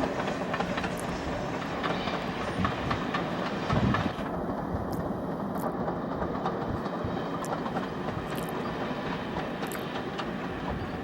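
Steam-hauled train running on the rails, its wheels clacking over the rail joints in a steady rumble. The higher hiss drops away about four seconds in.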